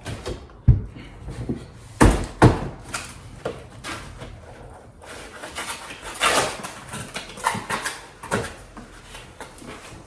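Sharp knocks, thumps and scraping of a new exterior door being handled and set into its frame for a dry fit.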